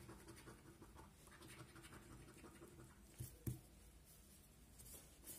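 A coin scraping the coating off a paper scratch card, faint and continuous, with two soft knocks a little past the middle.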